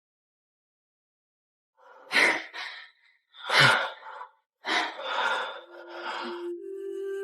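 A person's sharp gasps and heavy breaths, four or five in a row, beginning about two seconds in after silence. A soft, steady music tone enters near the end.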